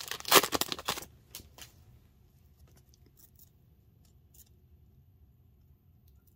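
A trading-card pack wrapper being torn open, crinkling for about a second, then faint light ticks and rustles of cards being handled.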